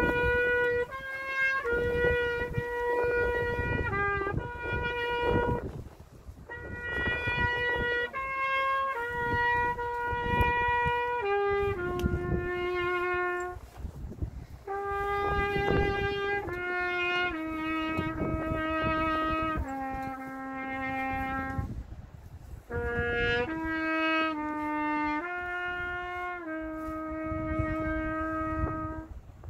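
A solo brass instrument plays a slow, stepwise melody in long held notes, in phrases of several seconds with short breaks between them.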